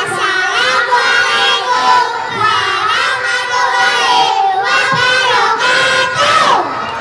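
Young children singing together in unison into microphones, amplified through a PA system; near the end a voice slides down in pitch.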